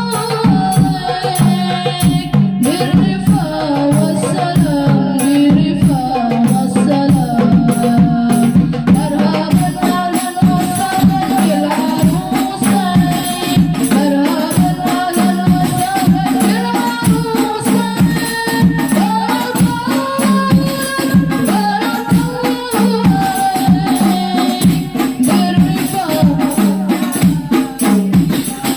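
Music: a melody moving up and down in steps over steady, fast percussion.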